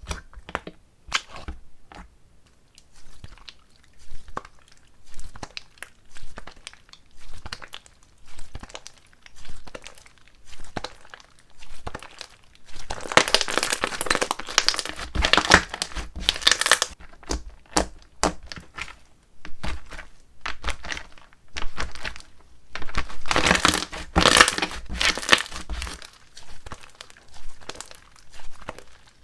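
Slime being pressed and stretched by hand: a run of sticky clicks and pops about once or twice a second, with two longer spells of dense crackling in the middle and near the end.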